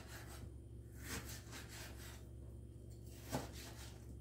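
Kitchen knife sawing through a piece of beef rib on a wooden cutting board: faint rasping strokes, with a single knock on the board a little over three seconds in.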